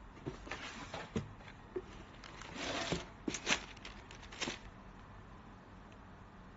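Cardboard shoebox being opened and handled, with the tissue paper inside rustling as a sneaker is lifted out: a few light clicks and taps, then a short rustle and some sharper clicks about halfway through.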